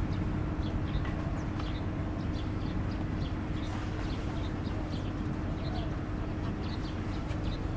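Steady low rumble of a CC206 locomotive's GE 7FDL diesel engine working under load up a slight grade, heard from afar with a constant hum. Birds chirp in short calls throughout.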